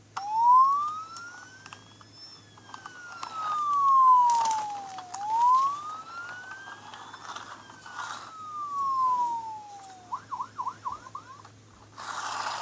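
Electronic siren of a toy police car (Imaginext Commissioner Gordon police car): two slow rising-and-falling wails, then a quick run of short yelps near the end. Scattered clicks and knocks come along with it, and a brief rush of noise sounds at the very end.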